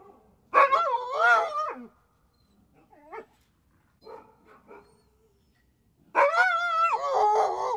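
Siberian husky vocalizing: two long calls that waver up and down in pitch, about a second in and again near the end, with a few short, quieter calls between them.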